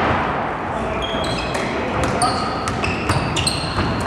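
Basketball game on an indoor court: sneakers squeaking sharply on the floor several times and a ball bouncing, over players' voices.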